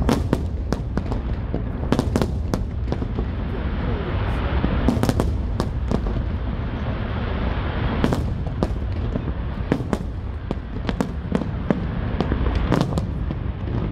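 Aerial fireworks going off: many sharp bangs at irregular intervals, sometimes several within a second, over a continuous low rumble.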